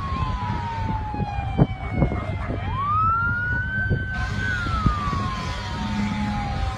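Emergency vehicle siren wailing over a steady low rumble: the tone slides slowly down, rises quickly about two and a half seconds in, holds, then slides down again.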